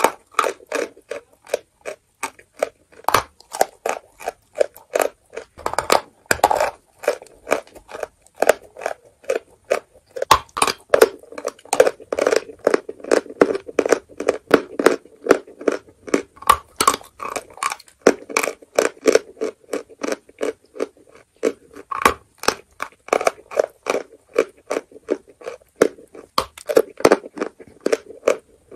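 Close-miked chewing of a mouthful of chalk, with dry, gritty crunches about three a second.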